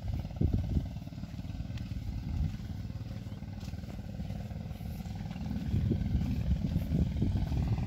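Low, steady rumble of a heavy TATA turbo lorry's diesel engine running, growing louder about six seconds in.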